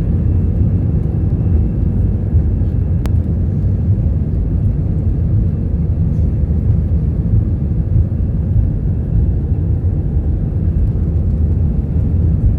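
Passenger airplane's engines during takeoff: a loud, steady low rumble that holds even throughout, with a single sharp click about three seconds in.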